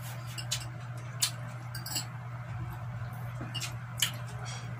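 Eating at a table: about five short, sharp clinks and clicks of cutlery against plates, the loudest about a second in and again near the end, over a steady low hum.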